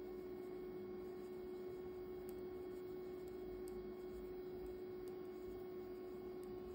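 Faint steady electrical hum, with a few faint high ticks.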